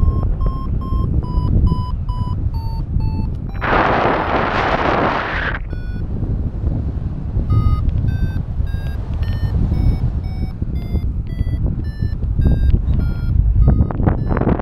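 XCtracer Mini IV variometer beeping: short tones around 1 kHz at first, then from about six seconds in quicker beeps whose pitch steps up and down, signalling that the paraglider is climbing, faster later. Wind noise on the microphone throughout, with a loud rush of noise for about two seconds near the middle.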